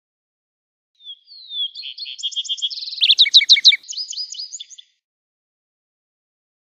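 Lark sparrow singing one song of about four seconds, starting about a second in: a jumble of clear slurred notes, quick trills and buzzy phrases, loudest in a run of fast down-slurred notes near its middle.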